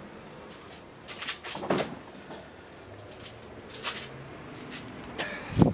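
Objects being handled: a few scattered knocks and clicks, with one sharp knock just before the end.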